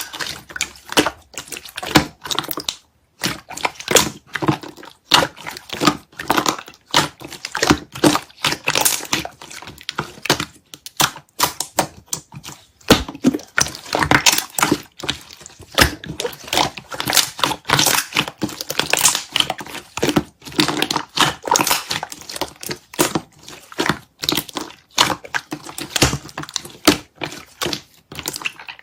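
Peach yogurt slime being squished and pressed by hand, giving a constant run of irregular wet pops and clicks.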